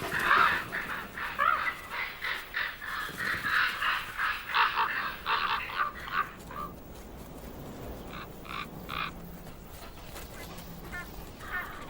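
Common ravens croaking and calling: a dense flurry of overlapping croaks for the first six seconds or so, then a few scattered calls.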